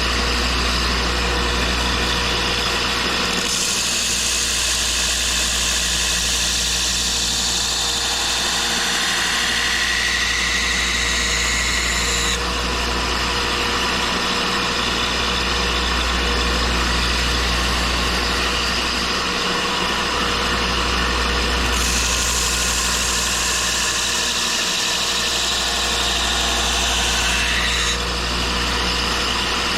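Belt grinder motor running steadily, with a knife blade pressed to the coarse belt twice, from about four seconds in for some eight seconds and again from about twenty-two seconds for six, each pass adding a loud grinding hiss. It is rough grinding to thin out a thick edge.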